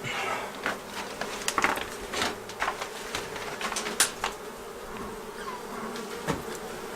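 A large wild honey bee colony buzzing steadily in an opened wall cavity, with a scatter of short puffs and knocks over the hum as the bees are smoked.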